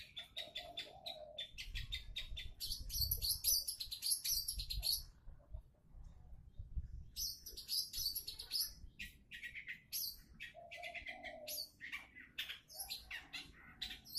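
Long-tailed shrike (cendet) singing a rapid, varied chattering song. It opens with fast strings of ticking notes, then a dense high warble. After a short pause about halfway, it continues with more mixed phrases, some of them lower.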